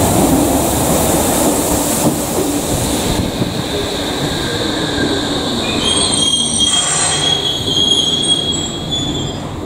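Berlin U-Bahn IK-series small-profile train running into an underground platform with a steady rumble and rush of wheels on rail. From about six seconds in, a high squealing of several tones sets in as it slows.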